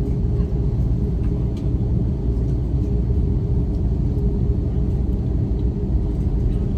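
Airbus A330 cabin noise while taxiing: a steady low rumble from the engines at taxi power and the wheels rolling along the taxiway.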